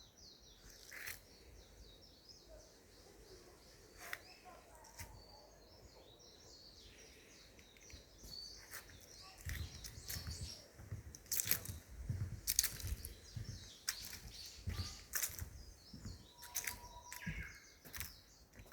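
Small birds chirping over and over in forest. Sharp clicks and low thuds come in, more often and louder from about halfway through.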